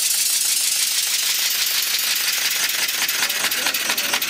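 Student-built compressed-air piston motor running: a steady hiss of escaping air with a rapid clatter of exhaust puffs, the clicks becoming more distinct in the second half.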